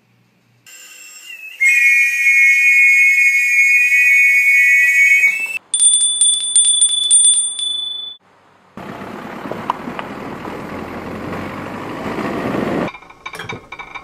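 A run of separate sound effects. First comes a few seconds of steady, high, whistling whir. Next a small brass bell is shaken, ringing with a high held tone over quick strikes. Then comes about four seconds of noisy rushing, and scattered clinks of dishes begin near the end.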